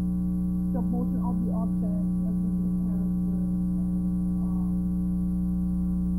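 Steady electrical mains hum with many evenly spaced overtones, loudest in its deep part, drowning out a faint voice talking about a second in and again briefly later.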